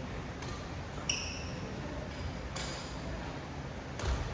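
Badminton rackets striking a shuttlecock about three times in a push drill, each hit a sharp crack, with a short high squeak of court shoes on the hall floor about a second in.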